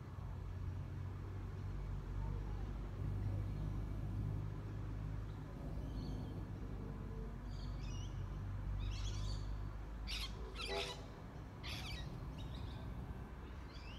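Birds calling: a handful of short, high chirping calls, mostly in the second half, one of them fuller and lower in pitch. Underneath is a steady low rumble of outdoor background noise.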